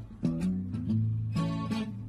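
Background music track with strummed guitar and bass notes, in a steady rhythm.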